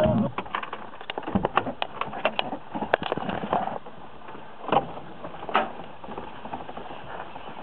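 Irregular clicks and knocks over a steady faint hiss, thickest in the first few seconds, with two louder thumps about five seconds in.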